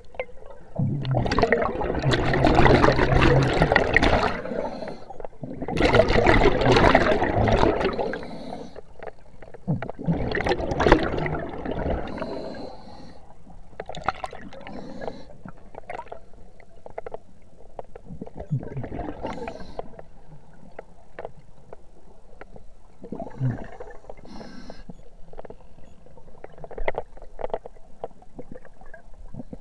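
Scuba regulator exhaust underwater: exhaled air bubbling and gurgling out in three long loud bursts, a few seconds apart, in the first twelve seconds, then fainter, scattered bubbling.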